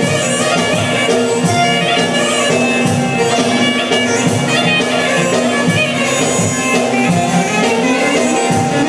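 Instrumental live music played on electronic keyboards: a bright, reedy melody much like bagpipes over a held drone and a steady beat.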